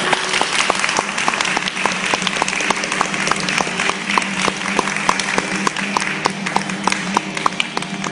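A crowd of wedding guests applauding with dense, continuous clapping for the newly introduced couple.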